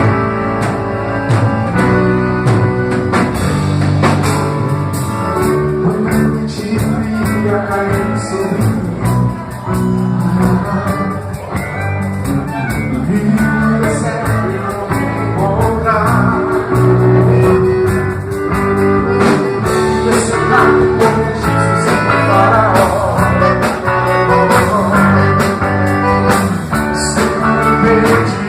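Gaita, a free-reed instrument, playing a gospel praise tune in sustained notes and chords.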